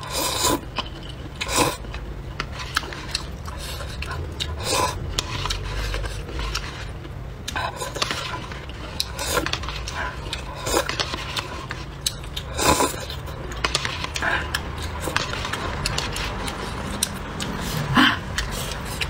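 Close-up eating sounds: slurping and chewing of hot-and-sour glass noodles, with chopsticks scraping and clicking against a paper cup, in irregular short sounds over a steady low hum.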